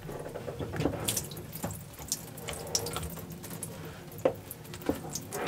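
Water trickling and dripping from the open housing of an inline freshwater strainer as its clear plastic bowl is unscrewed, with scattered small clicks from the plastic under a low steady hum.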